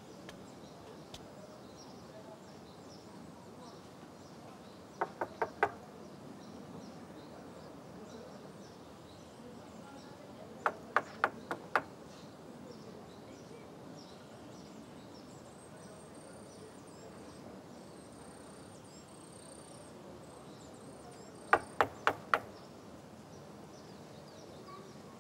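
Knocking on a door: three rounds of four quick knocks, the last coming after a longer wait. Faint high chirping runs underneath.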